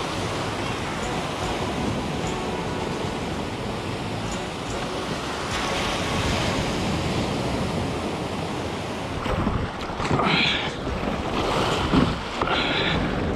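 Ocean surf washing and foaming around a kayak as it is paddled out through the breakers. From about nine seconds in, a few louder splashes come as waves hit the kayak's bow and the paddle strikes the water.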